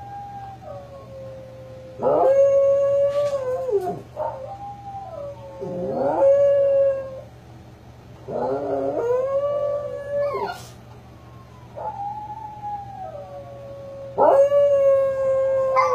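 A small black-and-tan dog howling, about five long howls in a row. Each rises quickly, holds a steady pitch, then slides down, with short pauses between.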